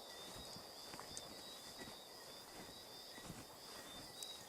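Footsteps through tall grass and over rocks, soft irregular thumps, under a faint, steady high-pitched chirring of night insects.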